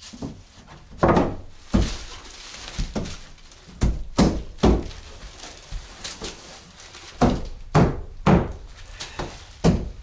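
Pine boards being knocked into place against a timber stud wall: irregular, loud wooden thunks and knocks. Some come in quick runs of three about half a second apart.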